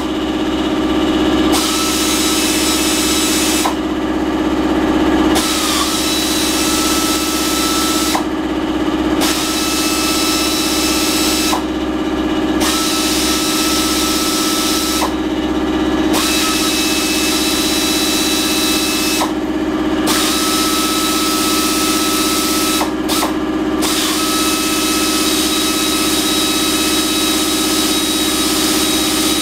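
Pneumatic ratchet wrench running, spinning out the bolts of a Mitsubishi Fuso Canter four-speed automatic transmission's oil pan. It runs in spells broken by short pauses every few seconds, over a steady low hum.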